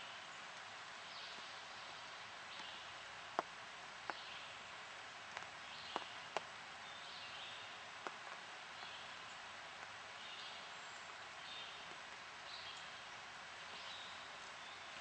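Quiet woodland ambience: a steady hiss with a distant songbird repeating a short high phrase about once a second, and a handful of sharp ticks in the middle.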